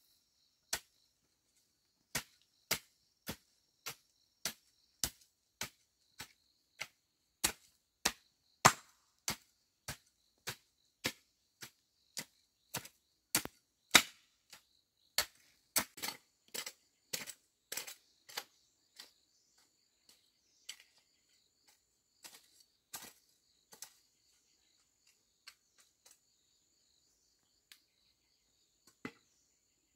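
Sharp knocks or chops in a steady rhythm of roughly two a second, thinning out and growing fainter about two-thirds of the way through. A faint, steady chirring of insects runs behind them.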